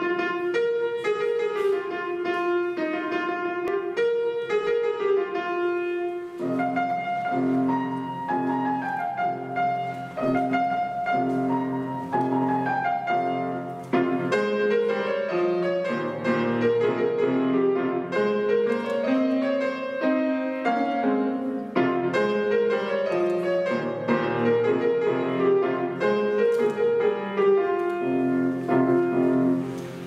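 Grand piano played solo: a melody alone for the first six seconds or so, then a left-hand accompaniment of repeated low chords joins beneath it. The playing stops just before the end.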